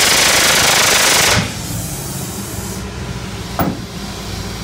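Pneumatic riveting hammer driving a hot rivet into a narrowboat's steel hull plating, a loud rapid rattle that stops abruptly about a second and a half in. A low steady hum remains afterwards, with one short knock near the end.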